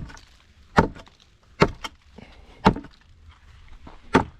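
Five sharp blows on nailed wooden formwork boards, roughly a second apart, as the timbers are knocked loose from the concrete.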